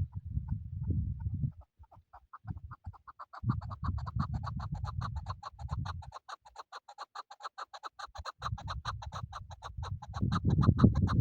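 Chukar partridge calling: a long, rapid run of short repeated clucking notes that starts about two seconds in and keeps going. Bouts of low rumbling noise come and go beneath it.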